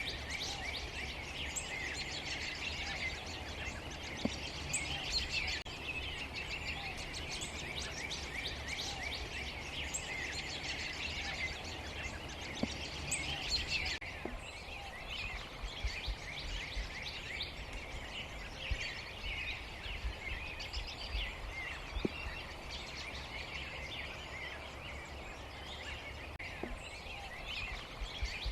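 Large mixed flock of blackbirds, grackles, cowbirds and red-winged blackbirds calling all at once: a dense, continuous chatter of many overlapping high chirps and squeaks, thinning slightly about halfway through, over a low rumble.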